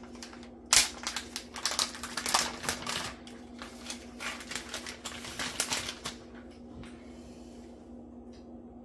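Thin plastic packaging bag crinkling and crackling as it is pulled open and handled, a quick run of sharp crackles for about six seconds, then only a few faint ticks.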